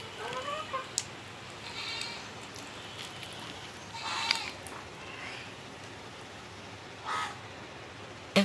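Short farm-animal calls, heard about three times, roughly two, four and seven seconds in.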